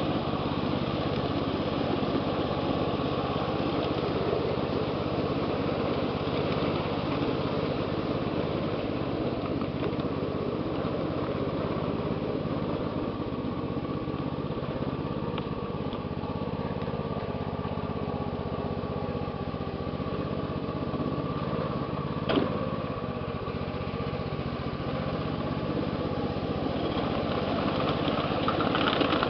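1/8th-scale ride-on railroad train running steadily along its track: a continuous mechanical running noise from the locomotive and wheels on the rails. A single sharp click comes about 22 seconds in.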